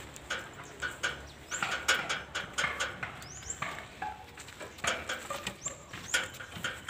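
Irregular knocks, clicks and scuffs of men loading teak logs into a truck, carrying them on their shoulders up a log ramp into the truck bed. A bird chirps short, high, rising notes every second or so.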